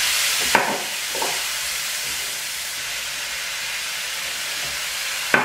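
Spice masala sizzling in hot oil in a nonstick frying pan, moistened with a splash of water to keep it from burning, while a silicone spatula stirs it. The hiss is steady, with a few brief sharper stirring strokes, the strongest about half a second in and just before the end.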